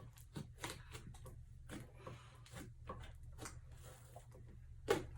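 Sticky, unfinished glue slime being stirred and kneaded by gloved hands: soft, irregular squelches and crackles, a louder one near the end, over a low steady hum.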